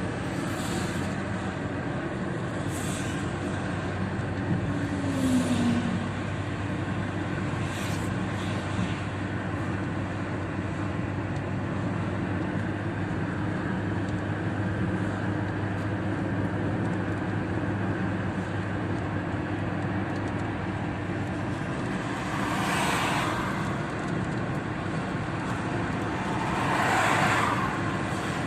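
Car driving on a highway in the rain, heard from inside: steady engine and tyre noise with rain on the windshield. Short hissing sweeps come every two or three seconds for the first eight seconds or so, and two louder swells of hiss rise and fade near the end.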